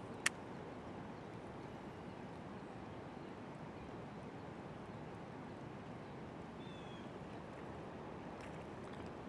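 Steady rush of water flowing at a dam, with one sharp click just after the start and a faint bird chirp about seven seconds in.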